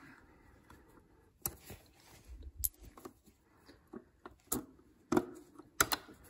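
A handful of sharp metallic clicks and clinks, spread out and loudest near the end, as a corroded roller drive chain's master link is worked apart by hand.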